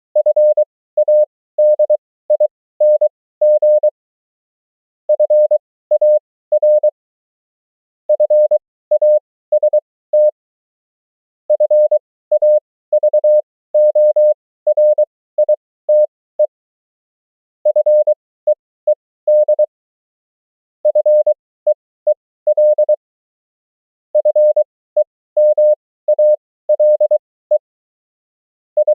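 Morse code (CW) as a single steady tone keyed into dots and dashes at 20 words per minute, 23 wpm character speed, sending common amateur-radio words and abbreviations one at a time with a pause of about a second between each, about eight in all.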